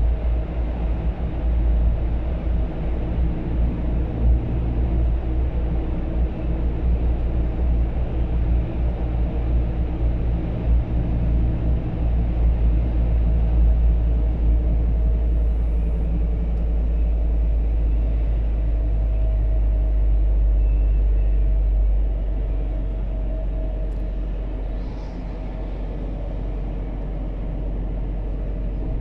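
Biogas Scania P280 truck driving at speed, heard from inside the cab: a steady engine drone over a heavy low rumble of road and tyre noise. The low rumble eases off slightly a little over twenty seconds in.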